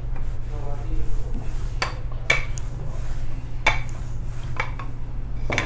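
Rolling pin working chilled laminated croissant dough on a granite counter: about five sharp, irregularly spaced clacks as the pin knocks and shifts on the stone, over a steady low hum.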